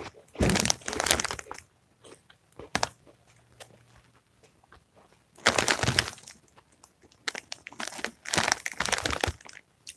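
Crunchy chewing of a Cheetos jalapeño puff wheel, mixed with the crinkle of a chip bag being handled. It comes in short bursts: about half a second in, around six seconds in, and again over the last three seconds.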